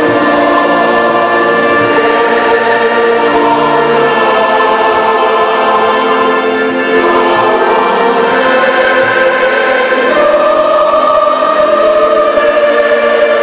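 Choir singing a Catholic communion hymn in slow, held chords.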